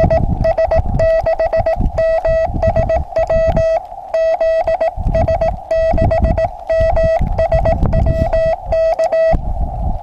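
Morse code (CW) sent on a hand key through a ham radio transceiver: one steady beeping tone in short dits and longer dahs over a narrow band of receiver hiss. The keying stops about nine seconds in, leaving only the hiss.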